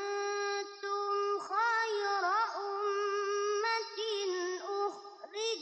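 A boy's solo Qur'an recitation in the melodic tilawah style, sung into a handheld microphone. One long held note gives way to ornamented runs that rise and fall, with a short pause for breath near the end.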